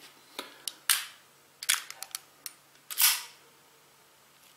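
Microtech-style out-the-front automatic knife firing: two sharp spring-driven snaps about two seconds apart as the blade shoots out and retracts, with lighter clicks from the slider and handling around them. The freshly reassembled mechanism works, with a very strong spring.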